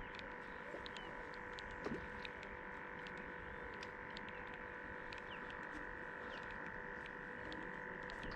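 Faint outdoor ambience: a steady hum with scattered short high ticks.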